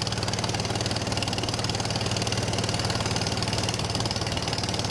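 Motorboat engine running steadily under way, a fast even chug that does not change, with a rushing hiss of wind and water over it.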